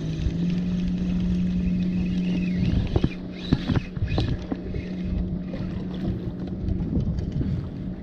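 Spinning reel being cranked to bring in a small fish, with a few clicks and rattles near the middle, over a steady low hum and wind buffeting the microphone.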